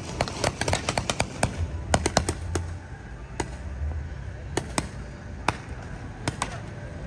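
Paintball markers firing in irregular volleys of sharp pops, several shots a second during the first two and a half seconds, then single shots about a second apart.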